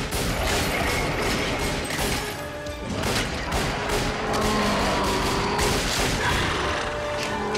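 Film soundtrack: score music under a dense series of sharp hits and crashes.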